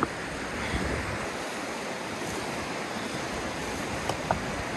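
River rapids rushing steadily in a full, even roar of whitewater, with a couple of brief faint clicks.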